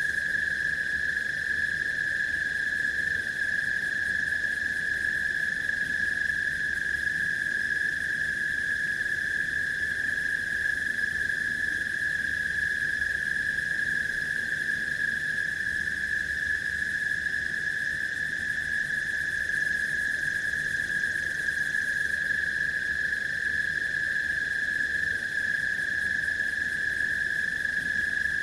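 Forest ambience: a dense, unbroken chorus of small calling animals that blends into one steady, high-pitched drone with fainter higher overtones.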